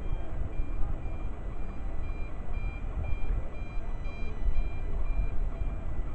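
Electronic warning beeps repeating about twice a second, alternating between two high pitches, over a heavy, uneven low rumble.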